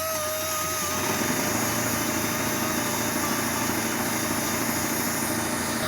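Engine-driven air compressor of a mobile tyre-repair vehicle running steadily. A thin whine present at first drops away about a second in, leaving the engine's dense, rapid running.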